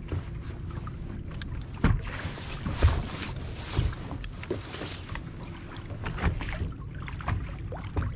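Small waves slapping against the hull of a bass boat on choppy water, with wind rumbling on the microphone; several sharper slaps stand out.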